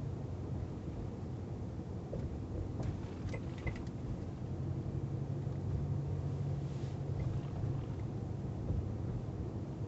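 2012 Dodge Ram 4x4 pickup driving slowly with a steady low rumble. About three seconds in, a short cluster of clicks and knocks comes from the front passenger side: the truck's unexplained front-end noise, still there after the whole front suspension was replaced.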